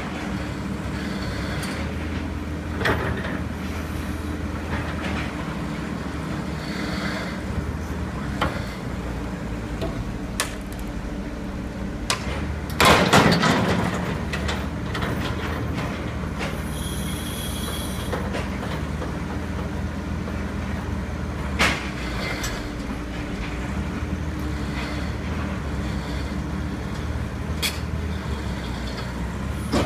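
Åkerman crawler excavator's diesel engine running steadily while its bucket breaks up old quay paving, rails and sleepers, with scattered clanks and scrapes of metal. A loud scraping crash about thirteen seconds in.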